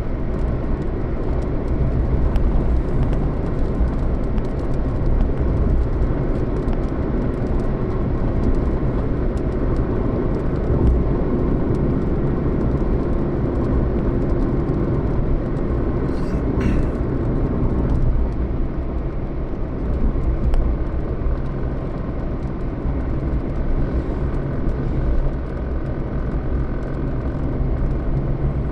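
Steady rumble of a moving road vehicle heard from inside, engine drone and road noise, with a brief sharp hiss about halfway through.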